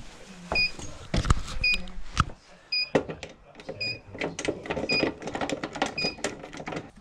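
Stannah 260 stairlift giving a short high electronic beep about once a second. Sharp clicks and knocks of a screwdriver and hands working at the carriage sound in between, the loudest about a second in and around three seconds in.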